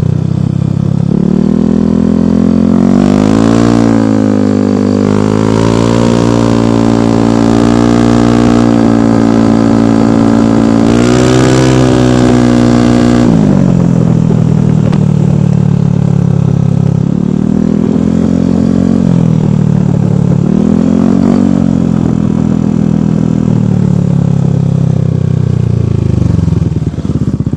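Yamaha NMAX V2 scooter's single-cylinder engine running through an aftermarket Rev 5 exhaust, being revved: it climbs about a second in, holds high revs with the pitch wavering up and down, drops back to a low idle around halfway, then gets two shorter blips of the throttle before settling.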